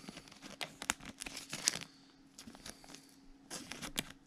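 Crinkling and crackling of thin plastic as a trading card is handled and worked into a soft plastic penny sleeve, in irregular short rustles and taps.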